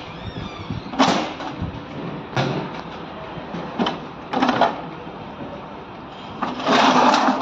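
Metal gearbox casing and its parts being handled, several separate knocks and scrapes, the longest near the end.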